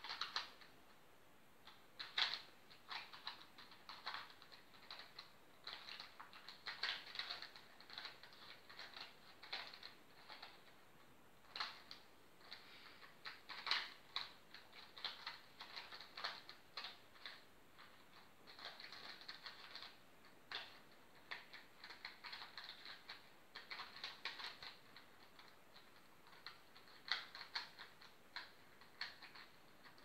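A 3x3 Rubik's cube being turned quickly by hand: its plastic layers click and clack in fast, irregular runs of turns, with short pauses between runs.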